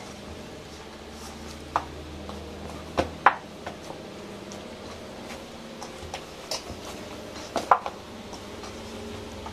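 Hands kneading corn-flour dough in a stainless-steel bowl: soft pressing with occasional sharp knocks against the steel, a pair about three seconds in and another pair near the end.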